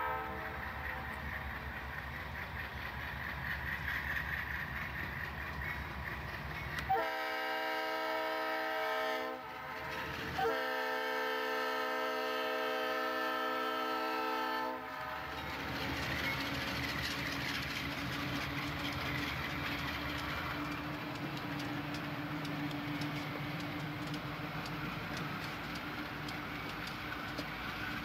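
Conrail diesel locomotive passing a grade crossing, its engine rumbling, then sounding its multi-chime air horn twice, a short blast about seven seconds in and a longer one about ten seconds in. After the horn the train rolls past with steady rumble and clickety-clack of wheels on rail joints.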